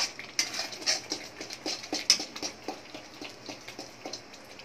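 Metal spatula stirring and scraping thick masala paste frying in oil in a kadai. It gives irregular scrapes and taps, a couple a second, which grow softer near the end. The masala is at the stage where the oil has begun to separate.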